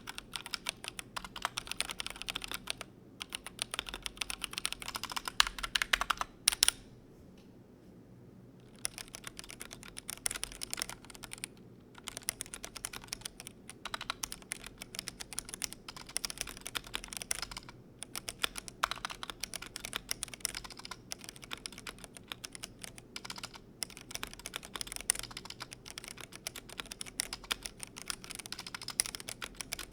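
Typing on a Glorious GMMK Pro mechanical keyboard: a fast, continuous run of keystroke clacks, broken by a pause of about two seconds roughly a quarter of the way through.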